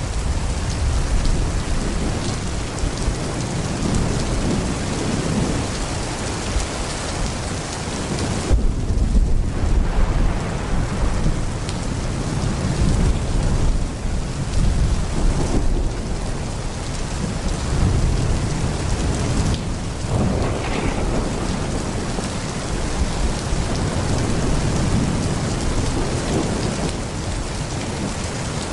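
Heavy rain pouring steadily with rolling thunder rumbling low underneath, the strongest rumble about nine seconds in and more swells later.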